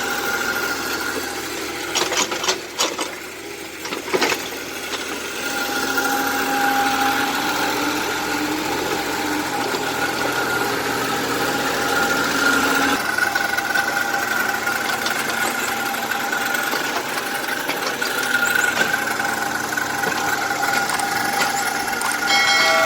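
Excavator running and working: a steady engine drone with a whine over it, and a few sharp knocks about two to four seconds in.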